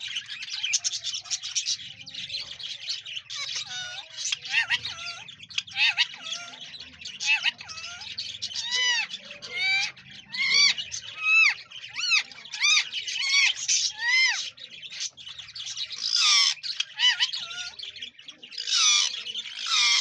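Rose-ringed parakeet calling: a dense run of quick chirps and arched rising-and-falling whistled notes, with a few louder harsh squawks near the end.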